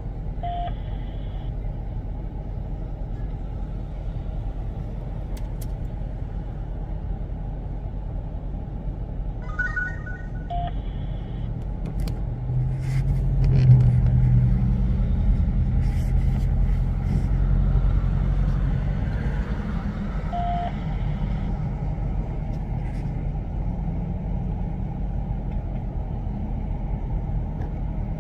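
Street traffic: a steady low road rumble, with a vehicle passing close by that swells to its loudest about halfway through and then fades. A short faint beep repeats about every ten seconds.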